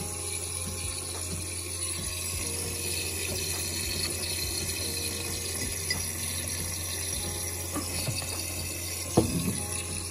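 Coffee machine running, a steady pump hum with water flowing through it, with a single short knock about nine seconds in.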